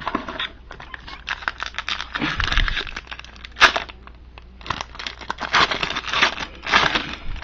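Hockey trading-card pack wrapper being crinkled and torn open, with cards being handled, in several rustling bursts. The sharpest crackle comes about three and a half seconds in.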